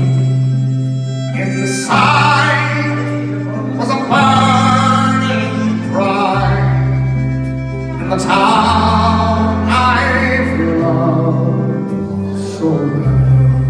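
Live folk ballad: a man singing over a strummed acoustic guitar, with strong strums about every two seconds and a bass line underneath.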